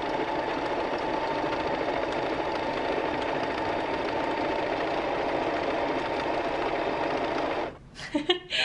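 Singer M1500 electric sewing machine running steadily as it stitches a seam through fabric, stopping abruptly near the end.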